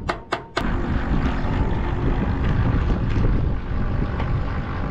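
Plucked-string background music cuts off abruptly about half a second in and gives way to a steady low rumble that runs on.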